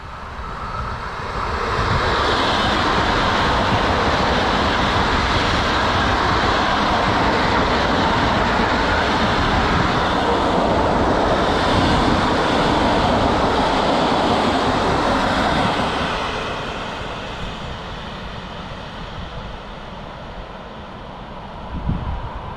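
A train passing at speed: a loud, steady rushing noise builds up about two seconds in, holds for some fourteen seconds and dies away over the last few seconds.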